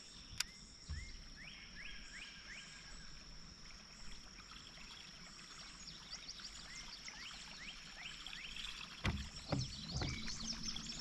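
Outdoor morning ambience on the water: small birds chirping in short rising notes over a steady high insect drone, with a sharp click early on and a few dull knocks about nine and ten seconds in.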